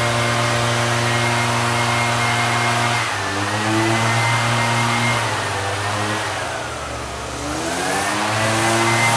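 A small two-stroke engine runs fast and steady, then its speed wavers. It sags for about a second, some seven seconds in, and climbs back up.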